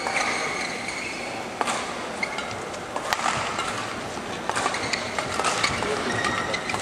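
Badminton hall sound: a steady hubbub with brief shoe squeaks on the court floor and a few sharp clicks of a shuttlecock being struck, several of them close together in the second half.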